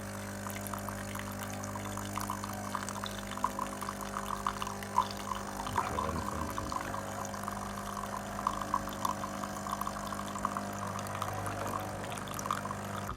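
Espresso machine's vibratory water pump humming steadily while water spurts and splutters through into the cup, a test brew on a newly fitted pump. The hum and the pouring cut off suddenly at the end.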